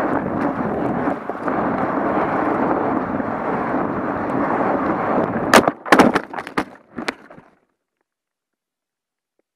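Wind rushing over the microphone of a weather balloon payload's onboard camera as it comes down. About five and a half seconds in it gives way to a quick series of loud knocks and thuds as the payload hits the ground and tumbles, and then the sound stops.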